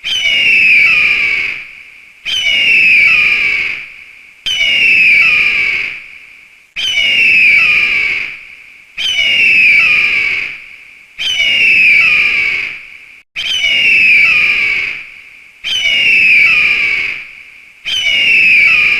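An eagle's scream, repeated about every two seconds: nine identical harsh, falling cries, each fading away before the next begins, like a looped recording.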